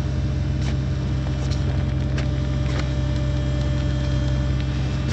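Engine of a heavy machine running steadily as it carries a large rock held in a strap, with a few faint knocks.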